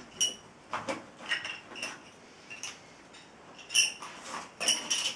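Plastic Connect 4-style game counters clicking and clacking against each other and the plastic frame as they are handled, about ten irregular sharp clicks with a short ring, the loudest near the end.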